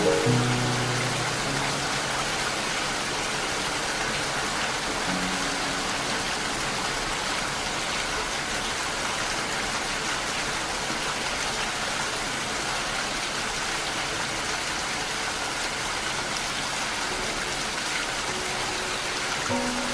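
Steady rain falling, an even hiss with no break. A few soft musical notes fade out in the first couple of seconds and come back near the end.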